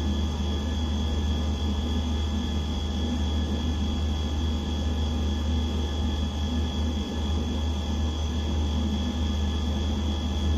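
Steady low background hum with a faint high steady whine over it, unchanging throughout.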